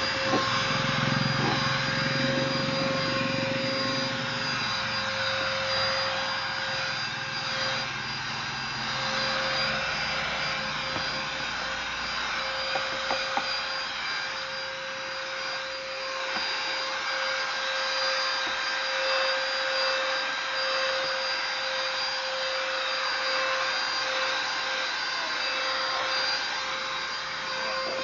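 Handheld car vacuum cleaner running steadily: a constant motor whine over a rushing hiss of air as it sucks sand and dirt from the car's interior.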